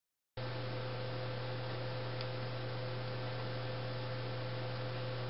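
Steady electrical hum with a constant hiss, starting abruptly after a brief dead silence at the very start.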